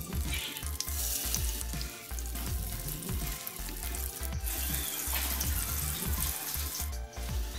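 Battered anchovy fritters frying in hot oil in a nonstick pan: a steady sizzle with fine crackling.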